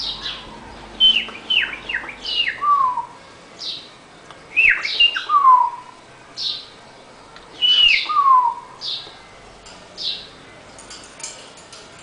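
Cockatiel calling: short high chirps about once a second, mixed with clear whistled notes that slide steeply down in pitch, coming in three loud groups. A few faint clicks near the end.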